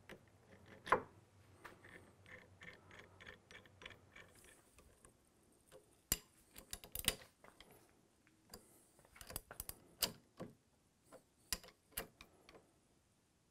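Steel tools clicking and clinking as an action wrench is fitted to a rifle action and its clamp bolts are tightened with a box-end wrench. A run of quick light ticks comes about two seconds in, followed by scattered sharper metallic clicks.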